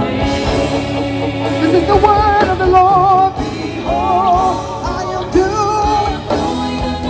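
Live gospel music: a singer holding long notes with a strong vibrato over a band's steady accompaniment.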